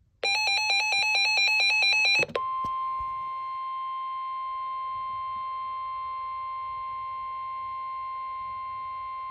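An emergency alert receiver sounds a fast, loud warbling beep that alternates between two pitches for about two seconds. It then breaks into a long, steady single-pitch alarm tone, the NOAA Weather Radio 1050 Hz warning tone that comes before a severe thunderstorm warning message.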